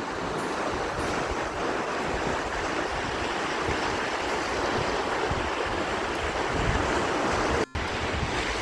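Sea surf washing continuously on the shore, with gusty wind buffeting the microphone. The sound cuts out for a split second near the end.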